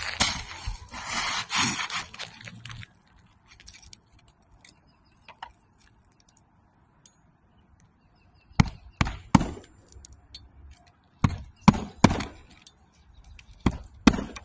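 Knocking on a door: sharp raps in quick groups of three, three and two, after a few seconds of rustling and scuffing.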